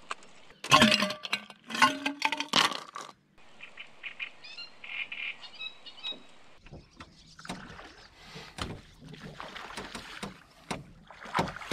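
A burst of loud knocks and clatter in the first few seconds, then faint bird chirps, then water slopping and knocks against a small boat.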